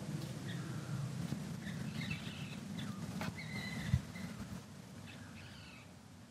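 Short, high chirping calls from small wild animals, several in a row, over a low steady rumble that fades after about four seconds. A single sharp thump about four seconds in is the loudest sound.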